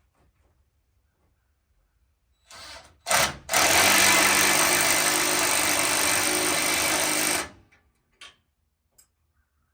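Handheld power tool running a fastener: a short blip, then a steady run of about four seconds that stops near the end, with a click after. It is plausibly driving a steering linkage bolt or nut tight.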